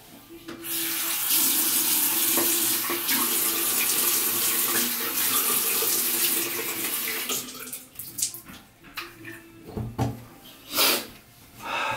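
Bathroom sink faucet running steadily for about six seconds while the face is rinsed, then shut off, followed by a few scattered splashes of water.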